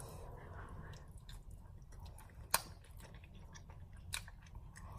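Quiet chewing of a candy spring roll, with scattered small mouth clicks and one sharper click about halfway through.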